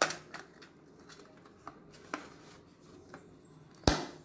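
A battery snapped into the plastic battery holder of a clock movement: a sharp click as it seats, a few lighter clicks of fingers and battery on the plastic case, and a louder click with a dull thump near the end as the movement is pressed.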